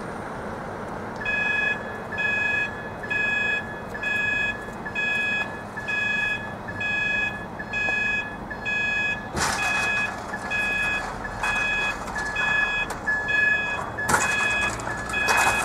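Railway level crossing warning alarm: an electronic beep repeating about once a second, starting a second or so in as the crossing's warning lights come on to signal that the barriers are about to lower for an approaching train. From about nine seconds in, short bursts of louder noise join the beeping.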